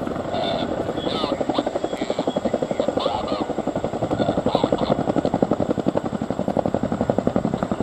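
Boeing CH-47F Chinook tandem-rotor helicopter hovering low, its turbine engines running and its two rotors beating with a fast, even thumping that grows stronger after the first couple of seconds.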